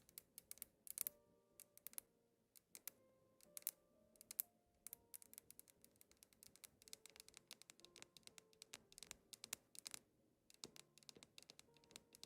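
Faint background music of soft held notes, with many sharp light clicks and taps scattered irregularly throughout.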